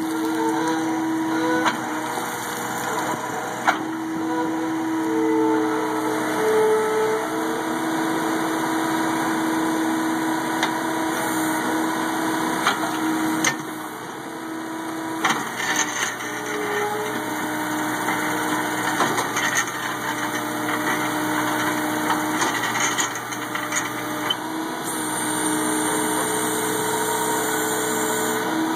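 Skid-steer loader's engine and hydraulic auger drive running as the auger bores into soil and lifts out spoil. The engine's tone shifts with the changing load, and there are scattered short knocks.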